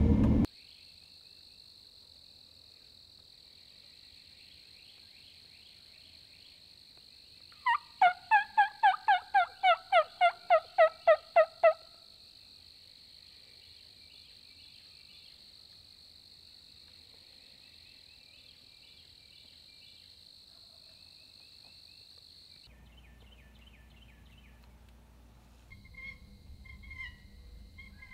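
A run of about fifteen evenly spaced turkey yelps, each dropping in pitch, about eight seconds in, over a steady thin high whine. Near the end a low rumble comes in with a few short high bird chirps.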